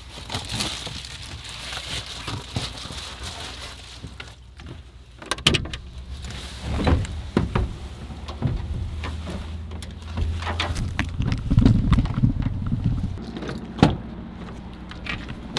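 Rustling of clothes and boots being pulled on in a pickup truck's cab, then the truck door opening and shutting with heavy knocks. A low engine hum runs for several seconds, and near the end there is a sharp clunk as the door locks are set from the keypad on the driver's door.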